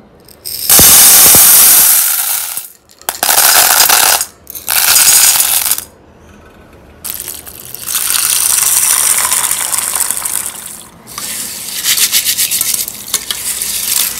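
Kitchen food-prep sound of something poured into a metal bowl: three short rushing pours about a second each, then a longer pour of about four seconds, with clinking and rattling against the metal near the end.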